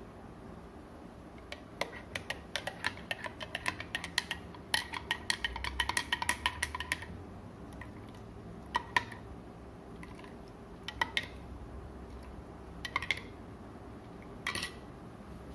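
Metal teaspoon stirring coffee in a glass mug, clinking quickly and repeatedly against the glass for about five seconds. Then come four single clinks, about two seconds apart.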